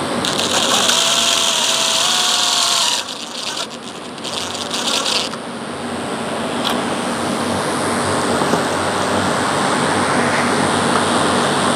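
Cordless DeWalt drill driving the screw of a rail support bracket into a composite railing bottom rail: a whining run of about three seconds, then a shorter stop-start run that seats the screw. After that a steady rushing noise with one click.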